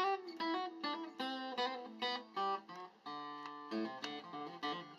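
Steel-string acoustic guitar fingerpicked: single notes and broken chords ringing and dying away, with one chord held a little longer about three seconds in.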